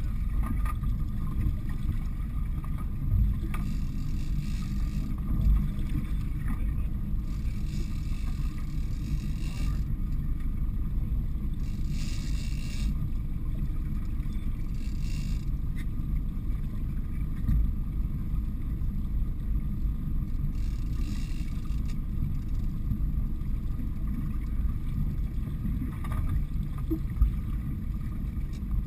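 Steady low rumble of the boat's engine running, mixed with wind on the microphone. A few short spells of hiss come and go every few seconds.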